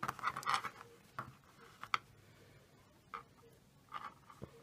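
Faint handling sounds: scattered light clicks and soft rustles as chunky-yarn crochet work and a plastic crochet hook are moved about on a tabletop.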